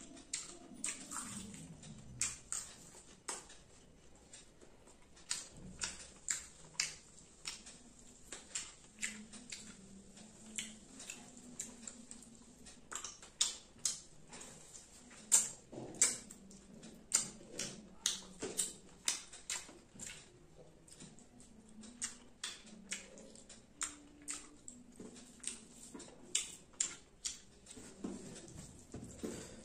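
Close-miked eating: a person chewing fried fish and rice, with a steady run of sharp crunches and wet mouth clicks about one or two a second.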